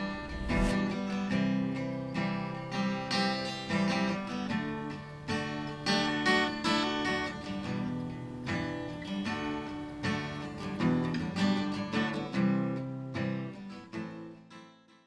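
Acoustic guitar strumming chords in a steady rhythm, fading out near the end.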